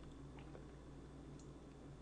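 Near silence: room tone with a steady low hum and a couple of faint clicks.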